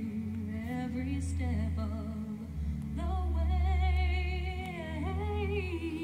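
A woman singing a slow, wordless melody, holding long notes with vibrato, over a steady low drone.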